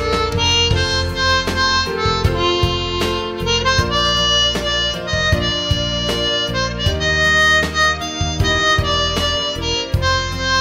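Diatonic harmonica playing a song melody note by note over an instrumental backing track with a steady bass line.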